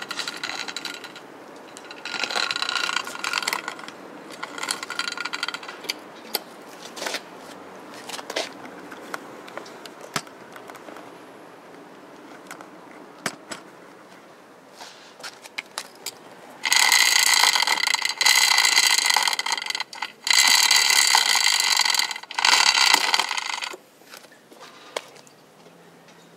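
Honda Z50J Monkey's drive chain scraping against the chain case at the sprocket: a fault noise from the chain rubbing where it should run clear. It comes in repeated bursts with scattered clicks, and the loudest are four bursts with a steady high ringing tone about two thirds of the way in.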